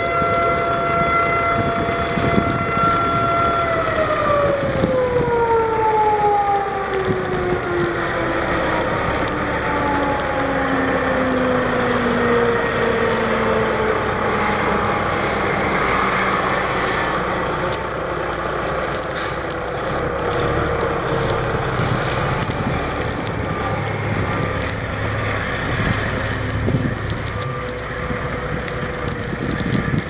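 Mechanical outdoor warning siren holding a steady wail, then winding down a few seconds in, its pitch sliding slowly lower for about twenty seconds as it fades. Under it are steady wind noise and the engine of a plow-equipped dump truck passing close by.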